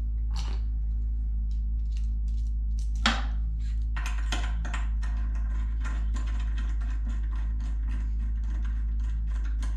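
Small metal clicks and taps of a steering damper's mounting bolt and hardware being handled and threaded in by hand, a couple of sharper clicks early and then rapid irregular ticking. A steady low hum runs underneath.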